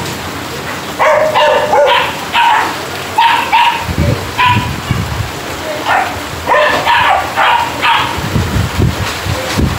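A dog barking over and over in clusters of quick, high barks, over the steady hiss of heavy rain.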